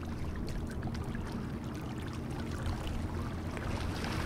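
A boat engine running with a steady low drone over the water, with small waves lapping and splashing at the shore.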